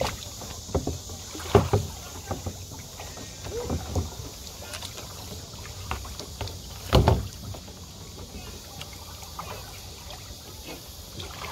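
Hollow knocks and thumps from a plastic kayak and its paddle being handled as a person climbs out into shallow water, several separate knocks with the loudest about 1.5 and 7 seconds in, over a steady high hiss.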